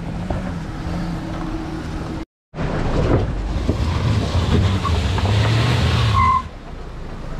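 Mahindra Thar 4x4 engine working at low speed as the vehicle crawls over loose boulders, with tyres grinding on gravel and stones clicking and crunching under the wheels. The sound breaks off briefly about two seconds in, comes back louder with the engine note rising and falling, and drops away a little past six seconds.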